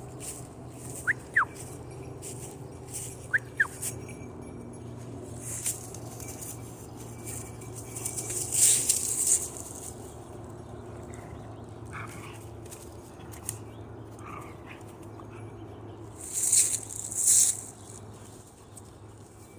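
Dry fallen leaves rustling and crunching as a Carolina dog drags and swings a long stick through them, loudest in two swishing bursts about nine seconds in and near the end. Twice in the first four seconds, a pair of short, high squeaks that drop in pitch.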